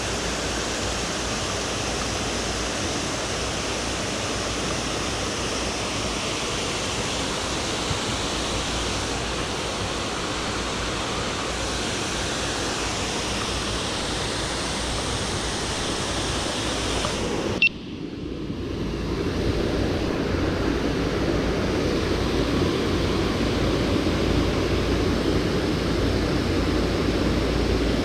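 Steady rush of river water spilling over and below a dam. About two-thirds of the way through there is a sharp click, after which the rush sounds lower and fuller.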